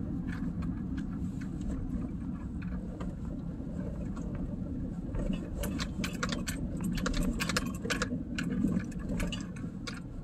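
Vehicle cabin road noise on a rough, potholed paved road: a steady low rumble of tyres and engine, with many light rattles and clicks from the vehicle jolting over the broken pavement, busiest in the second half.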